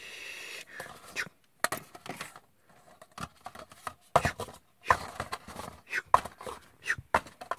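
Small paper cups being picked up and quickly nested into a stack: a run of irregular light paper taps and clacks, with a short rustle at the start.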